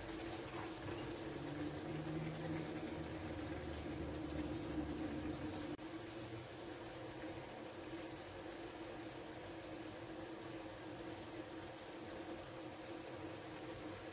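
Tomato sauce simmering in a clay tagine over a gas burner: a steady low bubbling hiss that eases slightly about halfway through.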